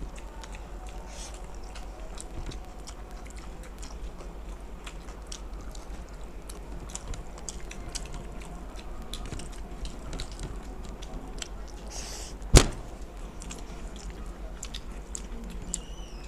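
Close-up eating sounds: chewing fried rice and chilli paneer, with many small mouth and utensil clicks. A single sharp click about twelve seconds in is the loudest sound, over a steady low hum.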